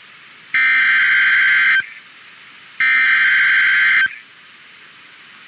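Two bursts of the EAS SAME header, the digital data code that opens an emergency alert broadcast over NOAA Weather Radio. Each is a buzzing data burst about a second long, about a second apart, with faint radio hiss in the gaps.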